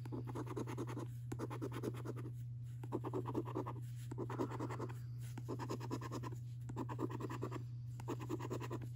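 A coin scratching the silver scratch-off coating from a paper lottery scratchcard, in quick runs of strokes about a second long with short pauses between. A steady low hum runs underneath.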